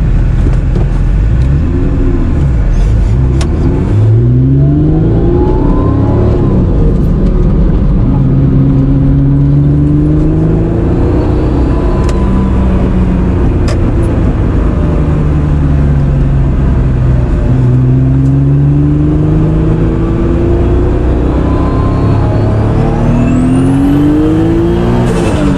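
Turbocharged Honda NSX's 3.0-litre C30A V6 pulling hard through several gears, its pitch climbing on each pull and dropping at each shift. Near the end a high turbo whistle rises sharply as the BorgWarner EFR 7670 spools.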